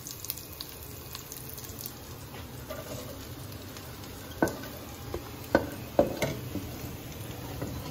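Garlic and onion frying in sesame oil in a wok, a steady sizzle. From about halfway through, shredded cabbage and other cut vegetables are tipped in by hand from a steel plate, with a few sharp metal knocks, the loudest about six seconds in.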